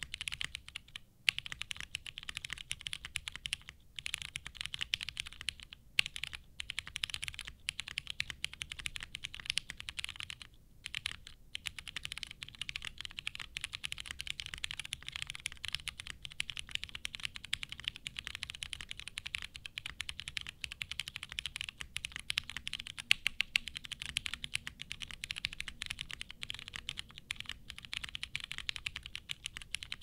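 Continuous typing on a Matrix Labs 8XV 2.0 Additional mechanical keyboard with a full polycarbonate plate, lubed Butter Brown switches and GMK Oblivion keycaps: a dense stream of keystroke clacks with a few brief pauses, the longest about ten seconds in.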